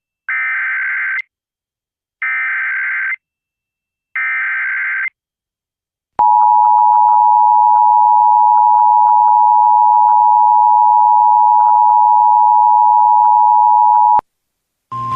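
Emergency Alert System activation for a flash flood warning: three short buzzy bursts of SAME digital header tones about two seconds apart, then, after a pause, the steady two-tone EAS attention signal (853 and 960 Hz) held for about eight seconds before cutting off abruptly.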